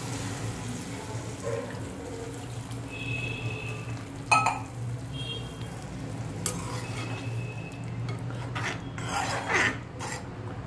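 A steel spoon stirring mutton liver through a freshly watered masala gravy in an aluminium pressure-cooker pot: a wet slosh with the spoon scraping and knocking against the pot's sides. There are a few short metallic squeaks, a sharp clink about four seconds in and a cluster of scrapes near the end, over a steady low hum.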